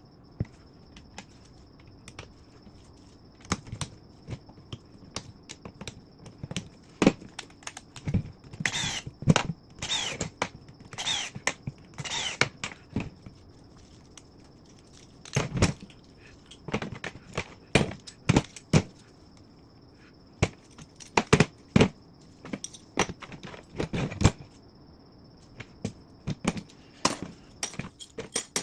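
Hand tools and small metal parts clicking, knocking and jangling in irregular clusters as a 1/5-scale petrol RC truck's chassis is taken apart. A faint steady high whine sits underneath.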